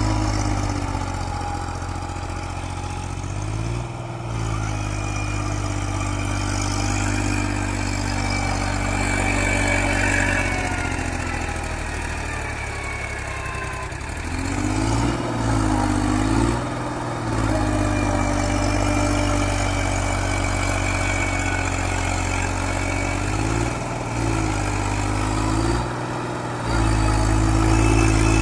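Massey Ferguson 246 4WD tractor's diesel engine running steadily under load, pulling a loaded sand trolley through deep mud. Its note dips and picks up again a few times as the throttle changes.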